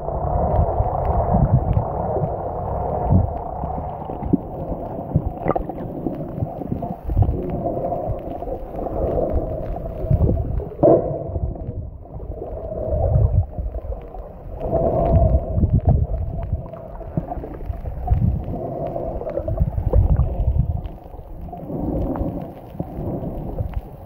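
Muffled underwater noise picked up by a submerged Samsung Galaxy S8's microphone: low rumbling and gurgling water that swells and fades every few seconds, with a few faint clicks.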